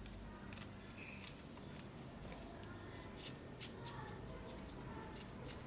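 Faint small clicks and light scraping as a lens's optic block is screwed back into its threaded barrel by hand, with a sharper tick a little over a second in and two more about two thirds of the way through.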